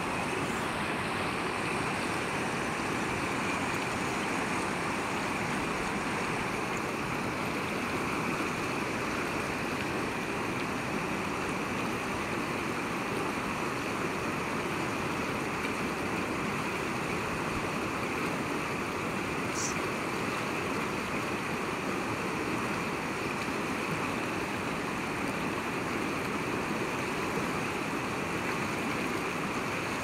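River rapids rushing over rocks: a steady, even rush of whitewater.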